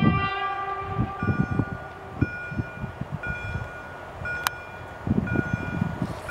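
Level-crossing warning signal sounding a short chime-like tone about once a second, with wind buffeting the microphone. A held stack of tones fades out during the first second or so, and there is one sharp click near the end.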